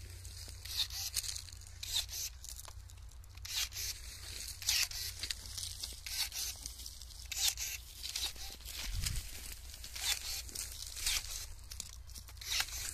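Cordless electric pruning shears cutting young quince branches: a series of short, sharp snips at irregular intervals, with rustling of the branches, over a steady low rumble.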